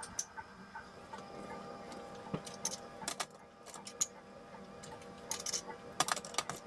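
Spice jars clicking and clinking as they are handled and shaken over a stainless steel mixing bowl of dry batter mix: scattered small taps and short clusters of clicks.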